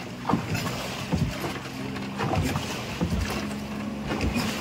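Suzuki outboard motor on a passing tourist boat running with a steady hum that gets louder about three seconds in as the boat draws alongside, with a few low thumps.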